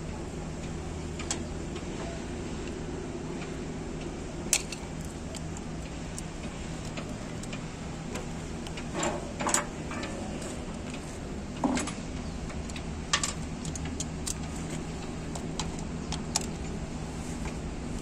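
A steady low engine hum, with scattered short metallic clinks and clanks of hand tools on metal, the sharpest about halfway through.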